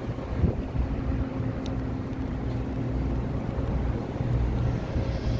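Steady low rumble with a faint hum from a cargo ship's deck machinery, with wind buffeting the microphone.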